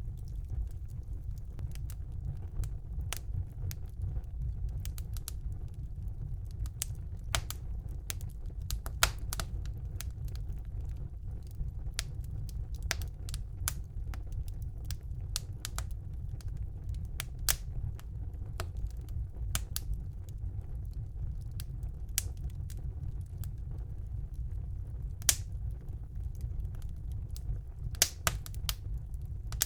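Wood fire burning in a fireplace: a steady low rumble of the flames with irregular crackles and sharp pops, a few louder pops standing out.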